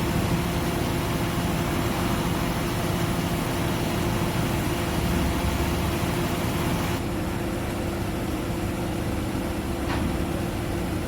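Truck crane's diesel engine running steadily with a low hum. A high hiss that comes with it drops away about two-thirds of the way through.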